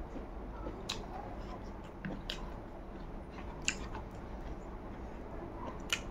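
Close-miked mouth sounds of a person chewing a mouthful of rice and soibum eromba, wet and smacking, with about four sharp lip smacks spaced through it.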